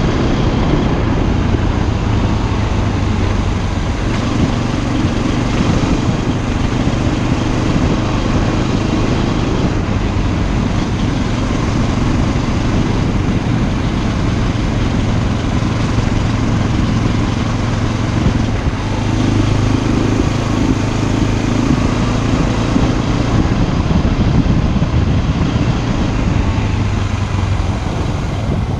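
Motorcycle engine running under way, its note shifting a couple of times with the throttle, over a steady rush of wind and road noise on the helmet-mounted microphone.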